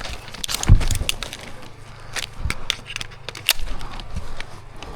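Scattered sharp clacks and knocks at irregular intervals during an airsoft close-quarters game: single gas-blowback shots and BB hits, with one heavy thump less than a second in.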